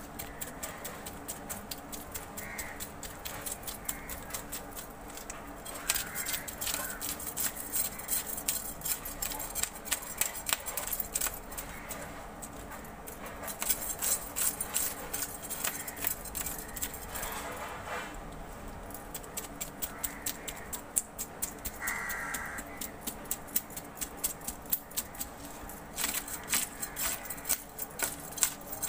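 A curved knife scraping the scales off a large, fresh fish on a wooden board, in fast repeated strokes that click and rasp, coming in busy runs with short pauses between them.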